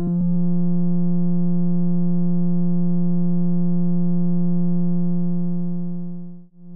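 A synthesizer holds one low, steady note with overtones, after a few last clicks in the first half-second. About six and a half seconds in, the note fades almost to nothing, then swells back.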